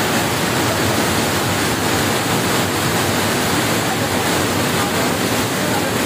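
Waterfall pouring over rocks close by: a loud, steady rush of falling water.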